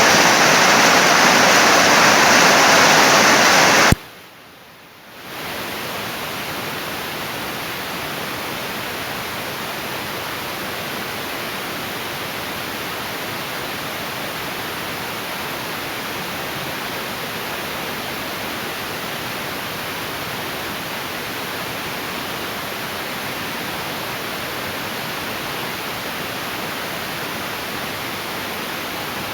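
Heavy rain pouring down in a storm, a loud even rush; about four seconds in it cuts off abruptly. After a brief lull, a steady, quieter, even hiss carries on.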